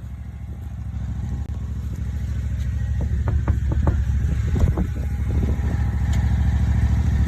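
Riding lawnmower engine running with a steady low pulse, growing gradually louder, with a few short clattering knocks in the middle.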